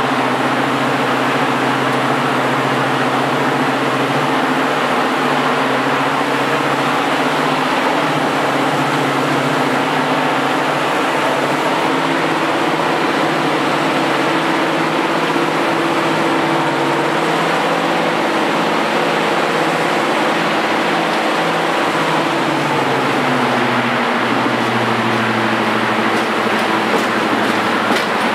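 Napier Deltic two-stroke opposed-piston engine of a Class 55 Deltic diesel locomotive running under power, working on one of its two engines and heard from just behind the locomotive. The loud, steady throb rises slightly in pitch about twelve seconds in and eases back down a few seconds before the end.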